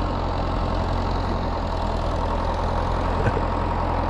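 Vehicle engine idling steadily, an even low hum with no change in speed.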